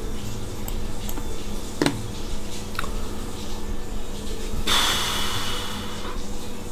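Steady electrical hum of the recording's background noise, with one sharp click about two seconds in and a second-long breathy hiss of the narrator's breath close to the microphone a little before the end.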